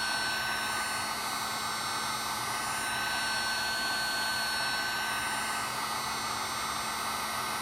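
Electric heat gun running steadily on high heat: an even airflow rush with a constant fan-motor whine, as it shrinks heat-shrink tubing over a cable.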